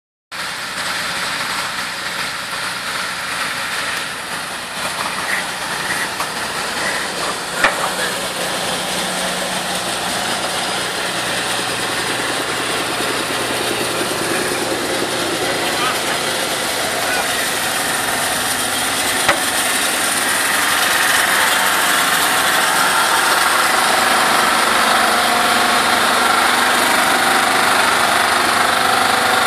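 Heavy diesel truck engines running steadily as a heavy-haul tractor unit and multi-axle modular trailers roll slowly past, growing louder in the second half, with voices in the background. Two short sharp knocks stand out, about 8 and 19 seconds in.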